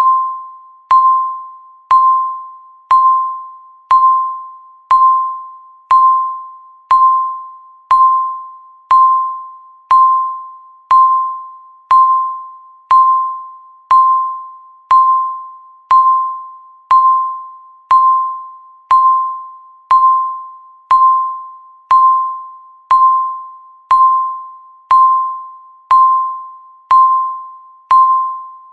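Countdown timer beeping once a second: a single electronic ding near 1 kHz, struck sharply and fading away before the next, marking each second left on the timer.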